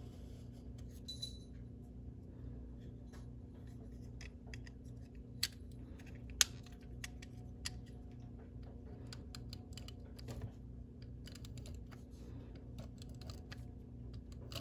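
Correction tape dispenser drawn across a paper card several times: faint scratching and ticking of the tape and its plastic housing, with a few sharper clicks near the middle. The tape is laying down poorly, its edge scraping off the middle of the whiteout so it has to be gone over three times.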